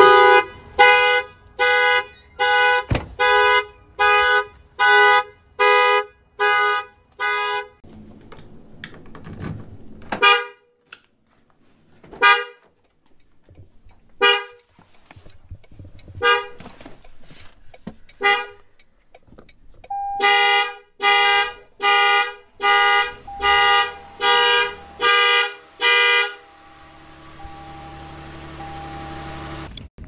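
Car horns sounding as anti-theft alarms. First a Toyota/Lexus horn honks in a steady fast rhythm, about two honks a second, for several seconds. Then come five short honks about two seconds apart, the warning a newer anti-theft system gives before the alarm goes off, and then another run of fast, regular honking.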